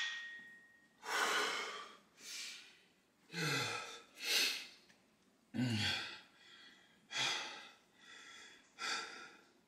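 A man breathing heavily: about eight short, sharp breaths in and out roughly a second apart, two of them with a low sigh that falls in pitch.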